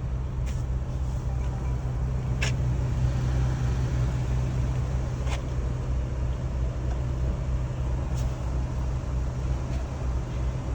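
Steady low hum of a running vehicle, with a few faint clicks a few seconds apart.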